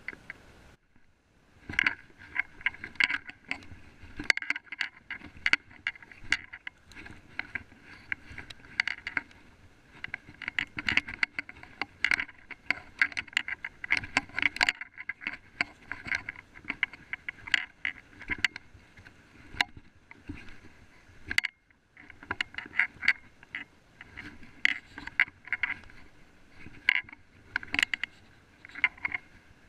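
Someone walking through forest undergrowth: irregular knocks, scrapes and rustles from footsteps and brushing past plants, with a couple of brief pauses.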